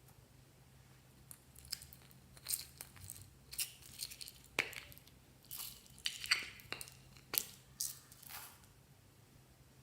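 Slime being pressed and stretched by hand, giving an irregular run of sharp crackles, pops and short sticky snaps. It starts about a second in and stops shortly before the end, over a faint low hum.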